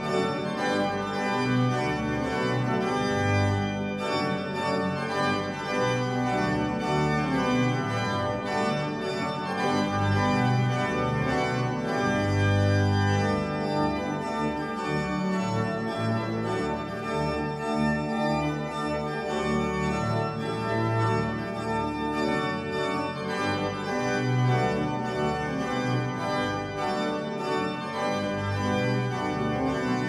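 Pipe organ playing full, sustained chords over a low bass line whose notes change every second or so.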